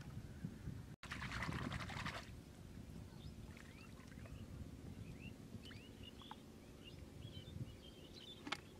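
Liquid pouring and splashing into a shallow muddy pool for about a second, then small birds chirping repeatedly with short high calls.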